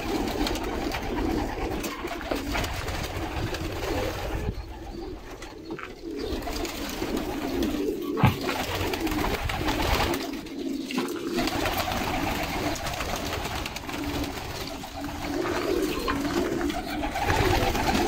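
A flock of domestic pigeons cooing, many low coos overlapping into a continuous chorus. One sharp clap stands out about eight seconds in.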